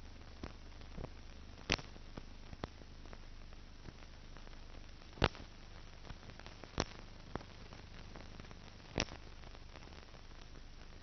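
Steady hiss and a low hum, broken by scattered sharp clicks and pops, four of them loud: surface noise on the soundtrack of a silent film, with no other sound.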